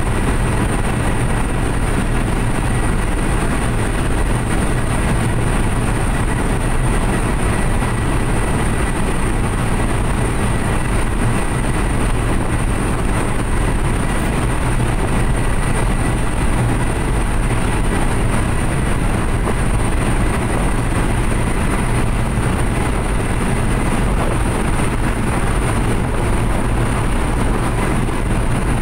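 Inside the cab of a laden Suzuki New Carry pickup cruising at full speed on a highway: the four-cylinder engine's steady drone and road noise from the tyres, unbroken, with a thin steady high whine over it.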